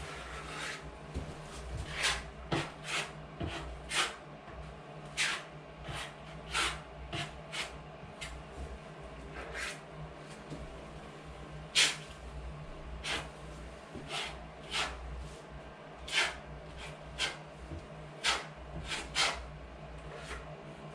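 Drywall work by hand: irregular short scrapes and taps, about one or two a second, some sharper than others, over a steady low hum.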